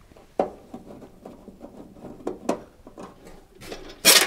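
Small clicks and scratchy ticks of screws being undone from a dishwasher's sheet-metal base plate. Near the end comes a louder, short scrape as the metal plate is pulled away.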